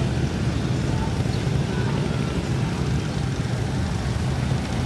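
Many motorcycle engines running together, a steady low, even sound.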